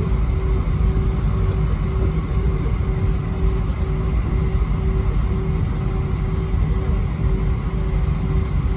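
Steady airliner cabin noise inside an Airbus A320-231: a constant low rumble of engine and airflow with a steady hum, no change in pitch or level.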